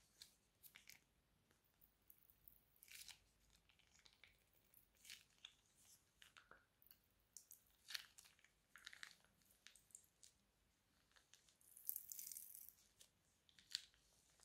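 Faint, scattered crackles and clicks of clear glitter slime being squeezed out of a plastic piping bag onto a tray of slime, the bag crinkling under the fingers. A longer crackly stretch comes near the end.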